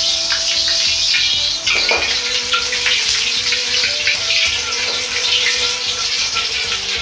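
Hot oil crackling and spitting in a wok over a gas flame as a ladle swirls it round to season the pan. The popping is the sign that the seasoning is not yet done; once it thins out, the wok is ready.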